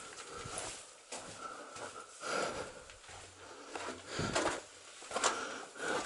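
A person breathing heavily, a few loud breaths about every second or two, with scattered scuffs and crunches of footsteps on loose rock.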